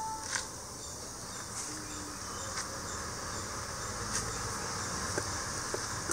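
Steady high-pitched chirring of insects with a low background hum, and a few faint clicks.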